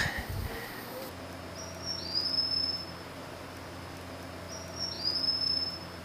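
Two high, thin whistled calls from a rainforest animal, about three seconds apart, each rising quickly onto a held tone for about a second, over faint forest ambience.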